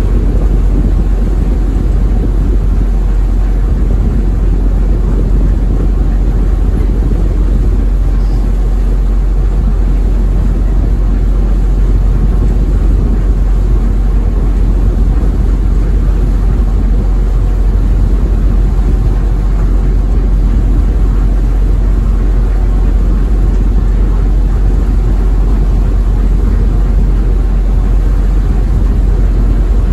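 The engines of the small passenger ferry Tsui Wah No. 12 running steadily underway, heard aboard from the stern as a loud, even low rumble.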